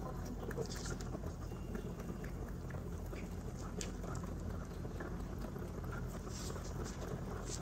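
Two rabbits chewing and nibbling hay close to the microphone: a quick, uneven run of crisp little crunches and rustles over a steady low hum.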